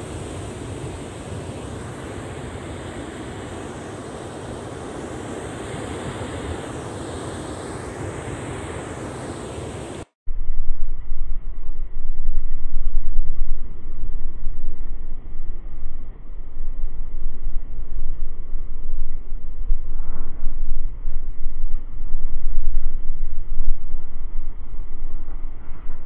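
Heavy typhoon surf breaking steadily, with wind, for about ten seconds. It then switches abruptly to a much louder, low, uneven rumble of wind buffeting a body-worn camera's microphone, with the surf muffled beneath it.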